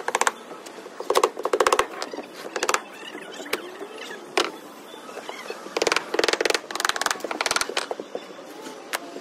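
Asphalt shingles being nailed onto a roof deck: sharp clacking strikes come in short, quick bursts, about half a dozen times.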